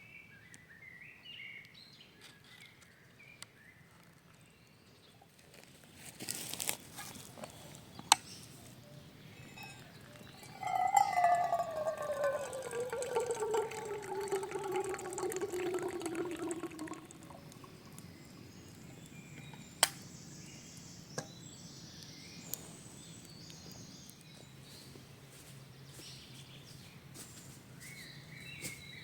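Liquid pouring for about six seconds, its pitch falling steadily as it goes, with a few sharp clicks and knocks before and after. Faint bird chirps at the start.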